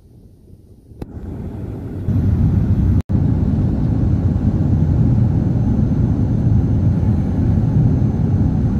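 Air France Airbus A380 jet engines giving a loud, steady low rumble. It comes in with two abrupt jumps in loudness in the first two seconds and cuts out for an instant about three seconds in.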